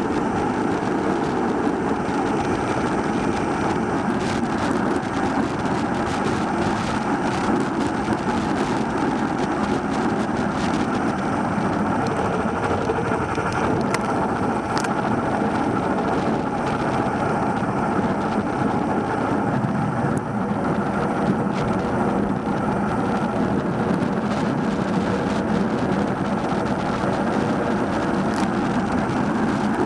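Steady wind and road noise on the microphone of a handlebar-mounted bike camera while riding a bicycle, with a few faint ticks.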